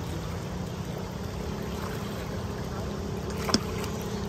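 Steady rush of river water and wind, with a faint steady hum under it and a single sharp click about three and a half seconds in.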